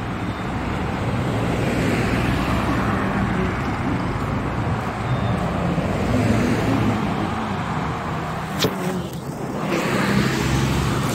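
Steady road traffic noise: cars running along a wet city street, with a brief click about eight and a half seconds in.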